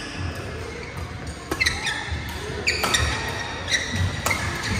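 Badminton rally: several sharp racket hits on the shuttlecock, with shoes squeaking and feet thudding on the court floor and other games in the hall behind.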